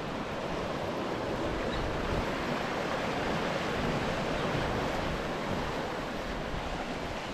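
Sea surf washing against shoreline rocks, a steady rush of noise that builds a little and eases again near the end, with wind buffeting the microphone.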